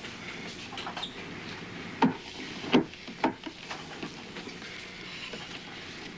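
Three sharp knocks: two loud ones about two seconds and nearly three seconds in, then a lighter one just after, over a steady hiss.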